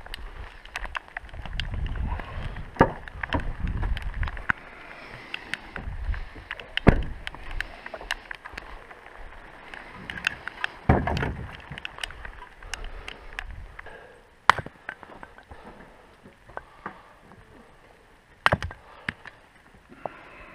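Scattered knocks and clunks in a small boat on a lake, with a low wind rumble on the microphone for the first few seconds.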